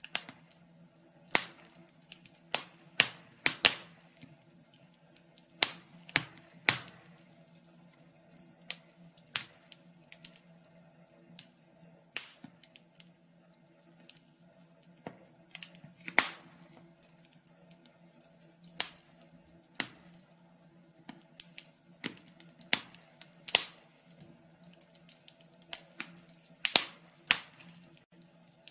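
Fire crackling in a fireplace: irregular sharp pops and snaps, a few every couple of seconds, over a faint steady low hum.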